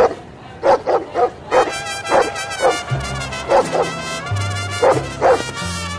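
A dog barking again and again in short, sharp barks, roughly two a second, over background music that comes in about a second and a half in.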